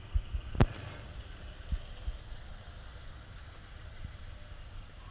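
Low wind rumble on the microphone, with a few soft thumps and one sharp knock about half a second in.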